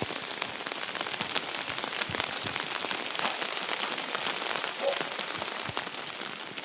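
Heavy rain falling steadily, a dense patter of many individual drops striking a surface.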